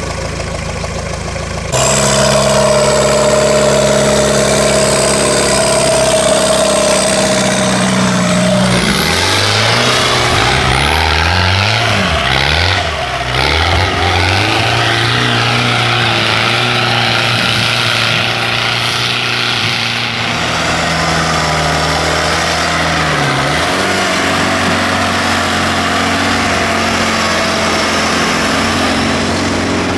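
Off-road 4x4 race vehicle's engine running hard and steadily, then from about nine seconds in revving up and down several times before settling back to steady high revs.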